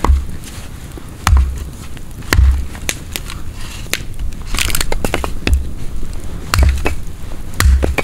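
Logs being handled on a snowy chopping block: a run of heavy thuds with sharp woody cracks and crunching, roughly one a second, with a quicker flurry of cracks about halfway through.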